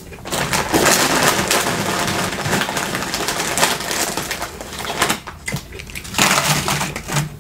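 Close-miked chewing and mouth sounds of someone eating a spoonful of a rice, bean and meat burrito bowl, with a brief break a little after five seconds in.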